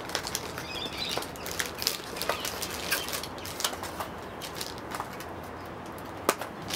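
Packaging rustling and crinkling as the media player is taken out of its box and unwrapped, with irregular crackles and small clicks throughout.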